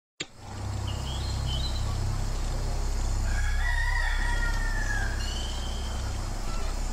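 A rooster crowing once, a long call that starts about three seconds in, with a few short high bird chirps around it, over a steady low hum.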